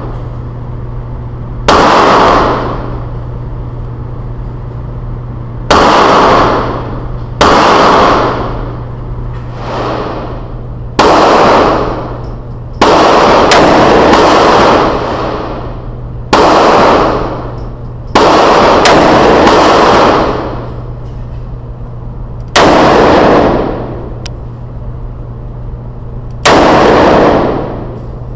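Ruger SP101 .357 Magnum revolver fired shot by shot, about a dozen loud reports spaced irregularly one to four seconds apart. Each shot rings on for about a second in the echo of an indoor range, over a steady low hum.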